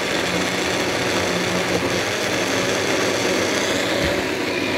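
Personal blender motor running steadily, its cup pressed down on the base, blending a smoothie.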